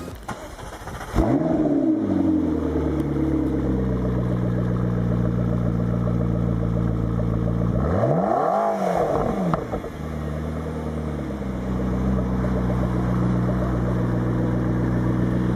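McLaren MP4-12C's twin-turbo V8 starting about a second in, flaring and settling to a steady idle. About eight seconds in it gives one quick rev that rises and falls straight back to idle.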